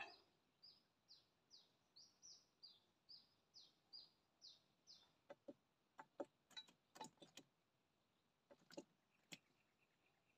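Faint bird calling a rapid series of short, high, falling notes, about two a second, for about five seconds; a few soft clicks follow in the second half.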